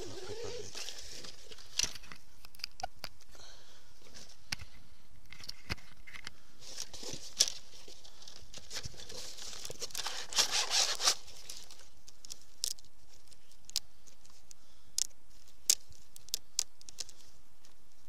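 Fishing tackle being handled up close: rustling and crinkling of bag fabric and plastic with scattered clicks and small knocks, busiest in a longer rustle about ten seconds in.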